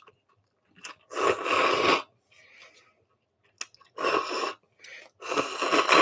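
Person slurping curry cup noodles, three hissy slurps drawing air in with the noodles and broth, the first and longest lasting about a second.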